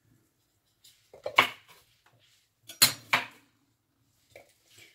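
Kitchen utensils clinking and knocking on the counter: a few sharp clinks, with two louder clusters about a second and a half in and about three seconds in, and fainter taps near the end.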